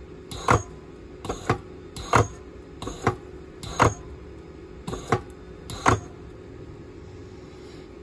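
Battery tab spot welder firing: a sharp snap each time its two electrodes discharge through the nickel strip on a cell, about eight welds in six seconds, some as a quick pair of a fainter then a louder snap. A steady low hum runs underneath, and the welding stops about six seconds in.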